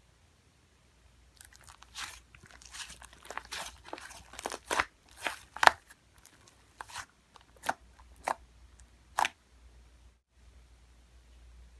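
Fluffy clay slime being squished by hand, crackling with a run of sharp pops, the loudest about halfway through.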